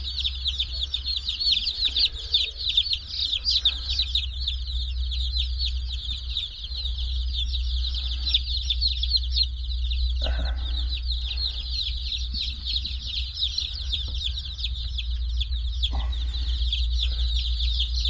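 A brooder full of baby meat chicks peeping nonstop, a dense chorus of short, high, falling cheeps, over a steady low hum. A few soft knocks come about ten seconds in and again near the end.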